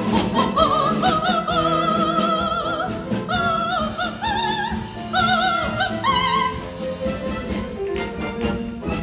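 Operatic soprano singing a wordless passage of long, very high notes with wide vibrato over orchestral backing, the notes stepping up and down every second or so.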